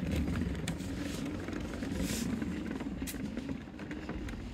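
Electric unicycle's tyre rolling along a wooden boardwalk: a steady low rumble with a few short clacks from the planks.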